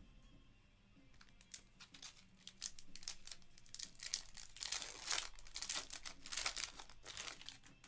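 Plastic wrapper of a Panini Prizm basketball multi-pack being torn open by hand, crinkling in quick crackles that grow densest after about four seconds.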